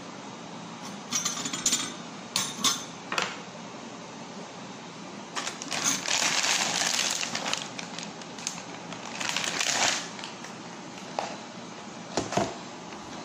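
Handling noises from items on a kitchen counter: a few sharp clicks and clinks, then longer stretches of rustling, and two more clicks near the end, over a steady background hiss.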